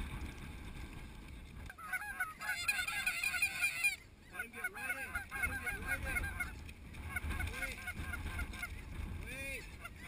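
Snow goose calls: a dense chorus of many short, high, overlapping honks that starts about two seconds in, dips briefly, and carries on until near the end.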